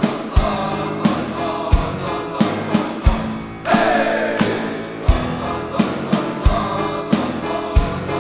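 Percussion ensemble music with piano: pitched mallet instruments (vibraphone, marimba, glockenspiel) and bass over a drum kit, with a kick drum hitting about every 1.3 seconds. A swell with a falling pitch comes in about three and a half seconds in.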